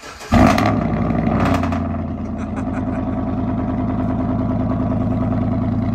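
Chevrolet Tahoe V8 with a new true-dual cat-back exhaust starting up loudly about a third of a second in, then settling into a steady idle.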